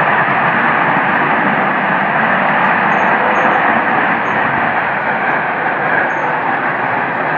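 Loud, steady rushing roar from the sky with no distinct pitch. The recorder says it sounds like jets flying overhead but that it is not from planes. It eases off slightly toward the end.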